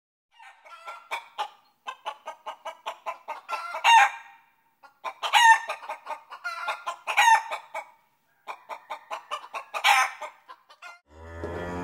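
Chickens clucking in quick runs of short notes, with four louder, drawn-out calls spaced a second or two apart. A low hum starts just before the end.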